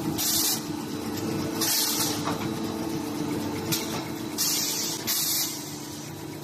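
Facial tissue packing machine running with a steady mechanical hum, broken by five short hisses of released compressed air at uneven intervals, as its pneumatic actuators cycle.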